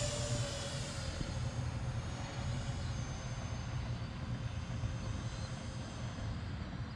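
Electric ducted fans of a Freewing AL37 RC airliner whining in flight, fading as the plane moves away after a close pass.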